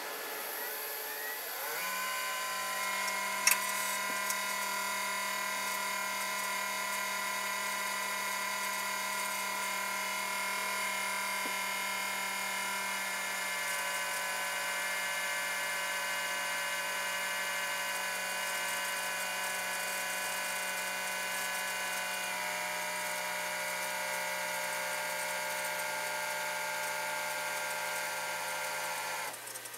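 Desktop PC tower making an odd whining buzz on booting up. It spins up in pitch about two seconds in, holds a steady whine over a low hum, and cuts off near the end. There is a single sharp click a second or so after the spin-up.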